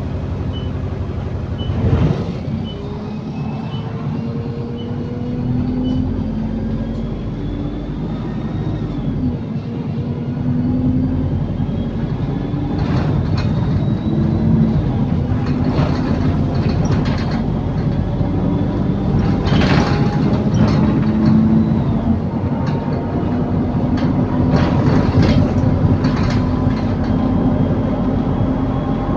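Optare Solo SR bus with a Voith automatic gearbox heard from on board, accelerating and cruising. The engine and transmission drone rises and falls in pitch through the gear changes, a high whine climbs, and there are repeated rattles and knocks from the bodywork of a bus described as a rattlebox. There are regular high beeps during the first few seconds.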